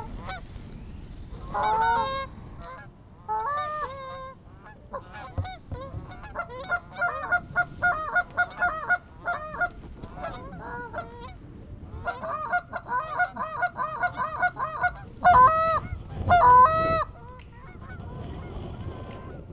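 Canada goose honks and clucks, scattered at first, then in fast runs of calling, with a few very loud honks about three-quarters of the way in.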